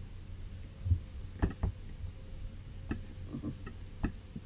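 Computer mouse clicks: about six short, sharp clicks at irregular intervals, starting about a second and a half in, over a faint steady hum.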